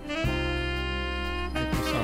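Background music: one long held note over a steady low bass line, giving way to shorter moving notes about a second and a half in.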